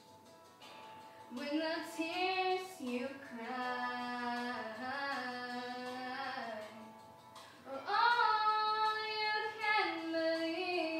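A young female voice singing unaccompanied or nearly so, in long held notes with slides between them. The first phrase starts a little over a second in, and a second, louder phrase begins after a short break about seven seconds in.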